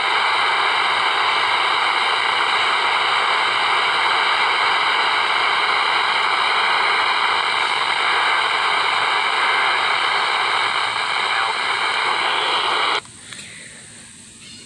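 Radio static: a steady hiss with several steady whistling tones over it, cutting off suddenly about two seconds before the end.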